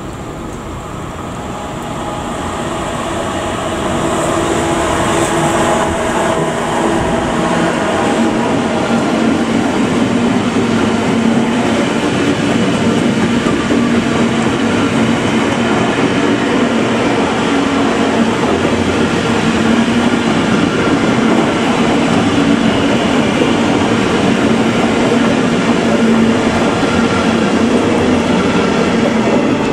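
Freight train of hopper wagons hauled by an electric locomotive passing close by. The sound builds over the first few seconds as it draws near, then holds as a steady rolling noise while the wagons go by.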